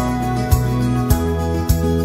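Background music: a gentle instrumental with sustained notes over a bass line and a new note struck at an even pace, about every half second.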